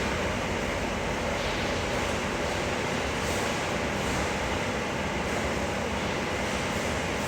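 A steady, even rushing noise with a faint underlying hum, with no distinct knocks, clicks or changes.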